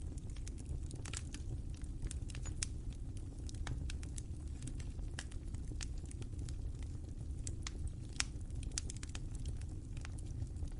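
Wood fire burning with a steady low rumble and irregular crackles and pops, a louder pop about eight seconds in.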